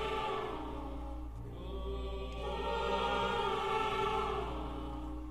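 Choral horror film score: a choir holds sustained chords that swell and fade over a low steady drone.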